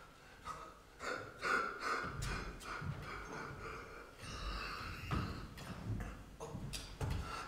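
A man's wordless vocal sounds, heavy breaths and huffs, with a few light knocks.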